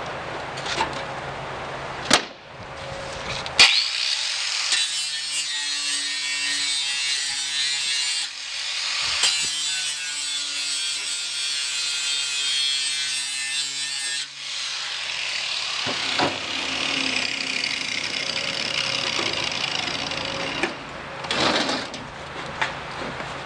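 Angle grinder grinding down a spot weld on the steel flange of a 1967 Mustang door shell, in one long run of about ten seconds, after a couple of sharp clicks. More grinding follows a few seconds later.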